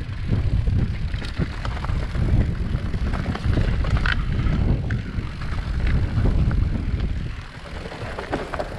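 Mountain bike riding down a rough trail: wind buffeting the microphone over the rumble of tyres on dirt and stones, with many sharp clicks and rattles from the bike. It eases off a little near the end.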